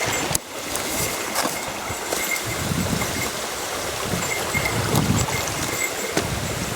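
Rushing water of a mountain stream and waterfall, a steady hiss, with occasional low bumps and rumbles.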